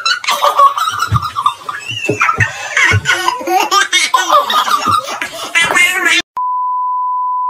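Loud, high-pitched laughter with a few low thumps. It cuts off suddenly about six seconds in, and a steady one-pitch bleep tone, edited in, sounds for over a second near the end.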